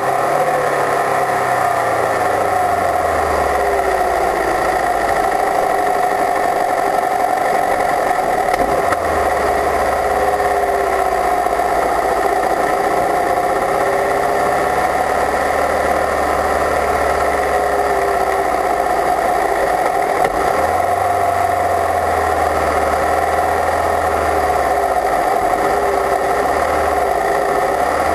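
Open-wheel race car at speed on a circuit, heard from an onboard microphone by the rear wheel: the engine runs hard with its note sinking and rising through the corners, under steady wind and road noise.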